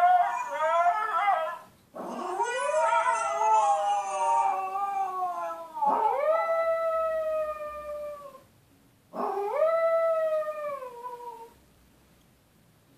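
Chihuahua howling: a run of four long howls, each swooping up in pitch and then slowly sagging away, with short breaths between them.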